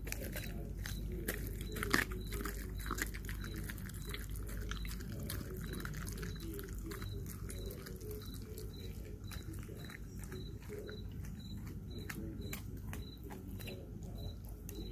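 Belgian Malinois chewing a raw whole chicken, its bones crunching and cracking in irregular clicks, with one sharper crack about two seconds in. A faint high chirp repeats about twice a second behind it.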